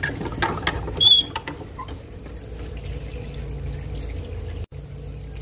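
Rubber exercise band and spear shaft being handled: a few clicks and squeaks, the loudest a short high squeak about a second in.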